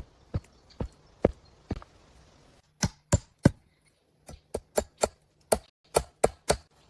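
Wood being chopped with a blade tool: sharp blows, five evenly spaced, then a quick run of three and, after a short pause, a faster run of about eight.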